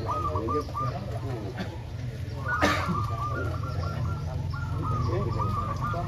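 Several zebra doves (perkutut) cooing together from hanging contest cages, their repeated rolling coo phrases overlapping. A steady low rumble runs underneath, and a single sharp knock comes about two and a half seconds in.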